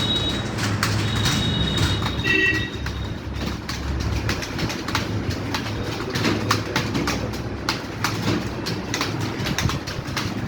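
Many computer keyboards clattering at once as several people type fast, a dense, uneven stream of key clicks over a low steady hum. A short high chirp sounds about two seconds in.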